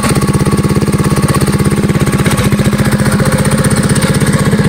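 Stage 3 Predator 212 single-cylinder four-stroke engine on a Coleman CT100U minibike idling steadily, with an even, rapid exhaust pulse through the stock-style muffler.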